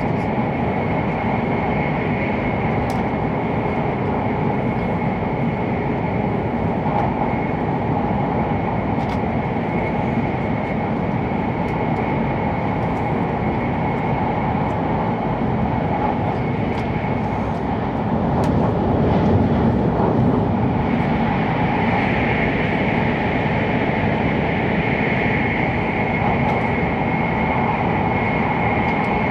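Running noise heard inside the cabin of an E7-series Hokuriku Shinkansen train at speed: a steady rushing sound with a thin, steady high whine above it. It grows louder about eighteen seconds in and stays up.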